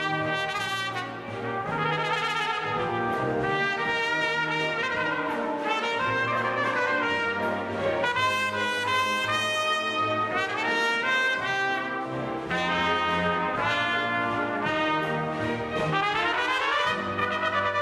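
Two trumpets playing together in a fast, ornamented passage over a symphony orchestra, with a quick upward run near the end.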